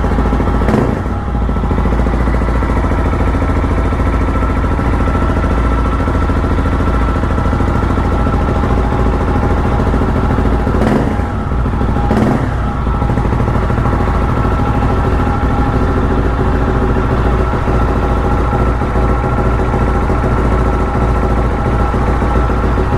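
2020 Husqvarna 701 Supermoto's single-cylinder engine idling through an aftermarket Wings exhaust, blipped briefly about a second in and twice around eleven to twelve seconds in. It is running normally after a fuel screen replacement.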